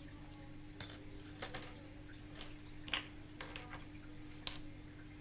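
Scattered light clicks and taps, about six in all and the sharpest about three seconds in, from small plastic pieces of a Popin Cookin candy kit being handled over a plastic tray. A steady low hum runs underneath.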